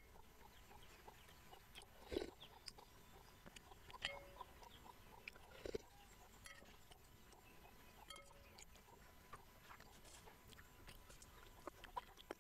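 Faint eating sounds from a soft glutinous rice ball dessert taken by spoon: quiet chewing, sipping of the sauce and small mouth clicks, with a couple of slightly louder soft gulps or knocks.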